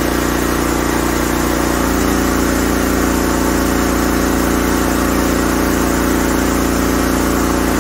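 Generac LP5500 propane generator's engine running steadily under about a 4 kW load. Its output reads about 118 volts at 58 hertz, a little below its proper speed.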